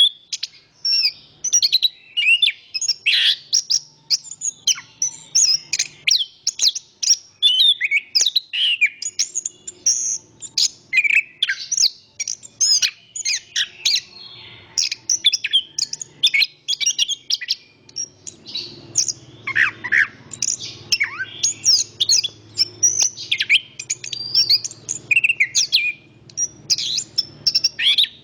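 Chestnut-capped thrush (anis kembang) singing a fast, continuous run of varied high chirps and whistles with almost no pauses. A faint low hum sits beneath the song in the last third.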